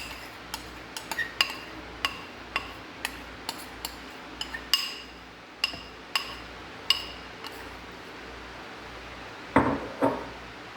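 Repeated light clinks of a kitchen utensil against a hard dish, irregular at about two a second, then a heavier clunk near the end.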